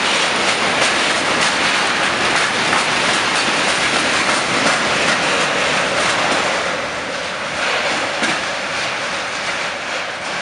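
Freight train of tank wagons rolling past, its wheels clattering over the rail joints. The sound fades gradually from about two-thirds of the way through as the last wagon passes and the train draws away.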